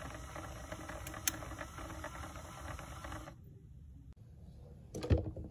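Electric motor and gear train of an LGB Mogul 2-4-0 G-scale steam locomotive running on a 7-volt bench supply, the wheels spinning freely, a steady whirr. It stops suddenly about three seconds in, and a brief knock follows near the end.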